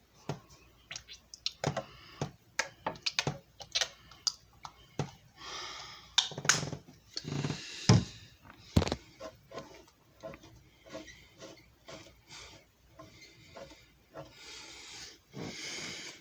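Handling noise: irregular clicks and knocks of hard objects being moved and set down, with a few spells of rubbing or rustling, the loudest near the middle.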